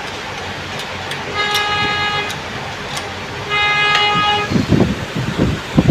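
A vehicle horn sounds twice, each toot lasting about a second, over a steady low engine and traffic hum. Louder, uneven low rumbling comes in near the end.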